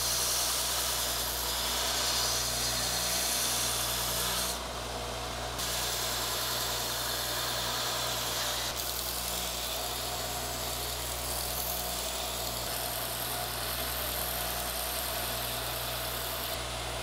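Belt grinder running with a steady motor hum while its abrasive belt grinds the wooden handle of a stainless-steel offset spatula, shaping and flattening it. The grinding hiss drops away for about a second around five seconds in as the work is lifted off the belt, then resumes.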